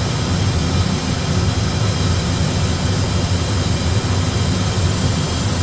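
Steady low rumble with a hiss over it: the background cockpit noise of an Airbus A320 flight simulator during descent.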